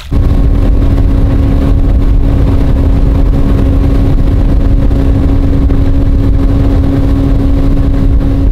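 Bass boat's outboard motor running at speed, a steady engine note over a loud rushing of wind and water.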